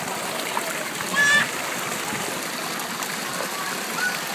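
Pool-deck water jets spraying steadily, splashing down onto the wet deck and pool edge. About a second in, a brief high-pitched voice cry rises over the spray.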